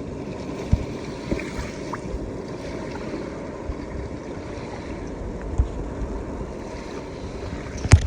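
Surf washing on the beach with wind buffeting the microphone, and a few short low thumps, the loudest near the end.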